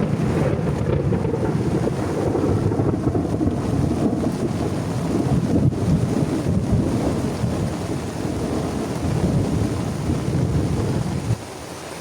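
Heavy rainstorm: a long, loud low rumble over the hiss of rain, cutting off suddenly near the end.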